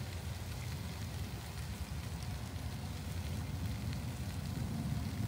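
Diced potatoes and vegetables sizzling steadily in oil in a stockpot, over a steady low rumble.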